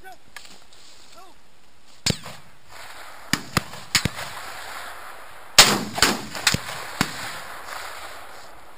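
A volley of about nine hunting gunshots from several guns at different distances, fired at wild boar breaking from the maize during a drive hunt. The loudest shot comes a little past the middle, and each report has a short rolling echo.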